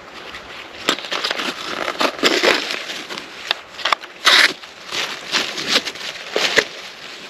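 Irregular rustling and crackling scratches, with sharp clicks scattered through and a louder cluster of scratching a little after the middle.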